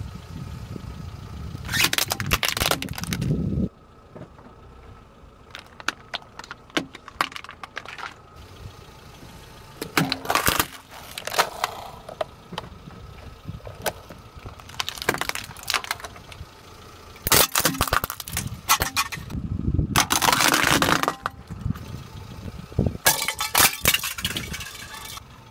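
Car tyre rolling over hollow plastic toys on asphalt and crushing them: several separate bouts of cracking and crunching plastic, a few seconds apart. A low rumble from the tyre and car runs under some of the bouts.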